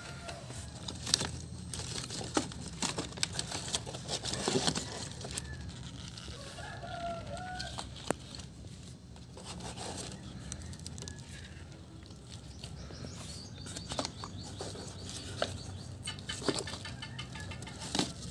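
Rustling and light knocking of cardboard box flaps and paper-wrapped skyrockets being handled and shifted by hand, in many short irregular clicks and scrapes. A short wavering bird call sounds in the background about seven seconds in.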